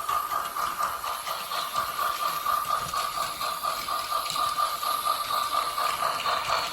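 Plarail C62 toy steam locomotive's built-in sound unit playing a steam-engine chuffing effect, an even beat of about four chuffs a second.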